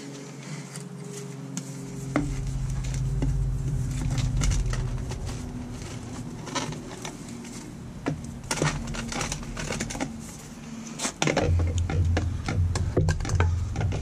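Light clicks, knocks and rustling of PVC pipe and fittings being handled, thickest in the second half, over a low rumble that comes and goes.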